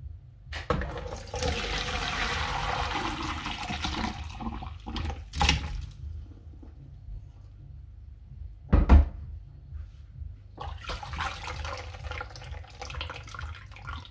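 Hot chicken stock poured from a pressure cooker through a stainless-steel colander, splashing and running into the bowl and sink in two spells. Metal clunks of pot and colander come in between, the loudest about nine seconds in.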